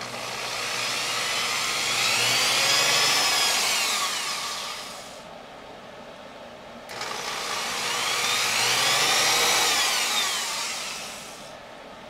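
Corded electric drill running twice, about four to five seconds each time. Its motor speeds up and then slows down again in each run, with a short pause between the two runs.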